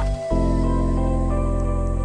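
Background music of sustained, held tones, with a brief dip in the low notes just after the start.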